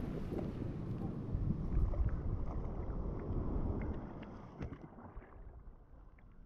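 Outdoor wind and water ambience: wind rumbling on the microphone over a noisy wash of water, with a few faint small knocks, fading out over the last couple of seconds.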